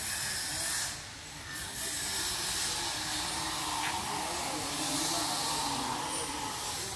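Steady outdoor hiss with faint distant voices.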